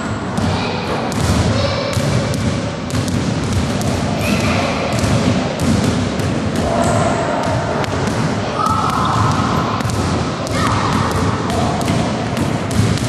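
Several basketballs bouncing on a hardwood gym floor, giving many irregular thuds that echo in the hall.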